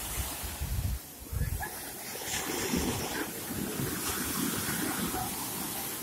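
Black Sea surf breaking and washing on the shore in a force-3 storm: a steady rushing wash, with wind gusting against the microphone.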